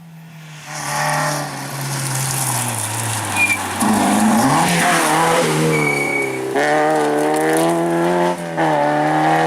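Rally car engine accelerating hard and changing up through the gears, the pitch climbing and then dropping sharply at two upshifts in the second half. Two brief high squeals, typical of tyres, come in the middle.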